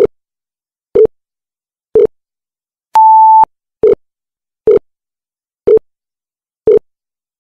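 Countdown timer sound effect: short, low beeps about once a second, with one longer, higher beep about three seconds in.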